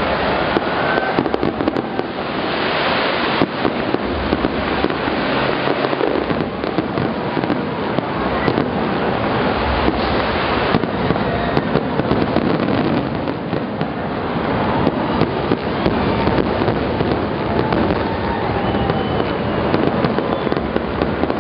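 Dense, continuous crackling with many sharp pops packed close together, and a few faint short whistles running through it.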